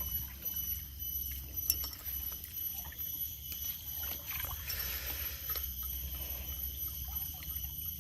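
Water lapping and splashing around a small boat on a river, with scattered small knocks against the hull.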